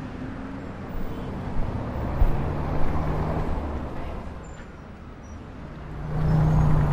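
Street traffic: cars passing close by, engine and tyre noise swelling twice, loudest near the end as a car drives past.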